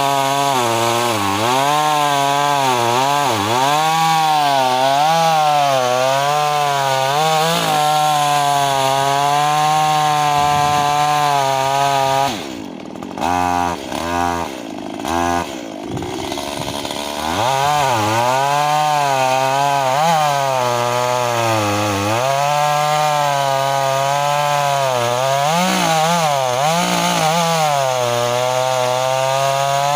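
Two-stroke chainsaw cutting through pine, its engine pitch wavering up and down as the chain bites into the wood. About twelve seconds in it drops in level and is blipped up and down for a few seconds, then goes back to cutting.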